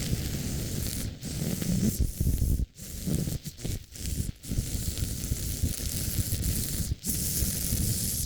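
Yard power equipment running with a loud, rushing noise, broken by several brief drop-outs.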